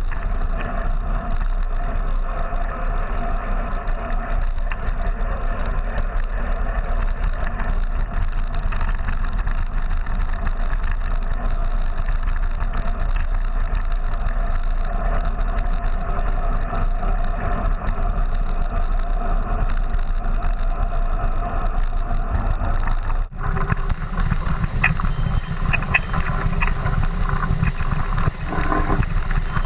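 Wind rushing over the microphone of a camera mounted on a mountain bike being ridden, mixed with road noise from the ride. About 23 seconds in the sound cuts abruptly to a bumpier ride with rattling clicks.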